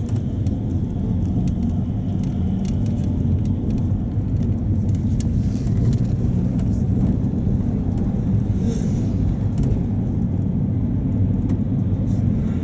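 Luidor-223206 minibus (Mercedes-Benz Sprinter Classic) heard from inside the cabin while driving: a steady diesel engine drone and road rumble, with a few light clicks and rattles.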